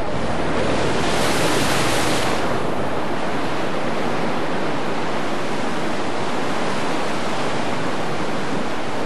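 Rough sea in a storm: waves breaking with a steady rush of surf and spray. One wave breaks louder between about one and two and a half seconds in.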